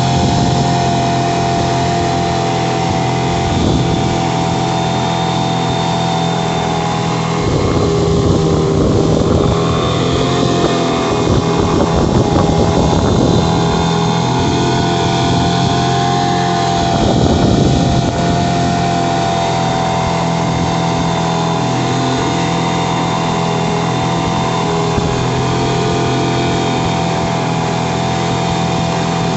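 Mariner 15 hp outboard motor running steadily at cruising throttle, driving the boat along, over the rush of the wake. Its pitch wavers and its level swells briefly twice, about eight and seventeen seconds in.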